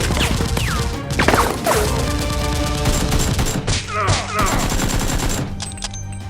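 Rapid bursts of gunfire sound effects over background music, thinning out near the end.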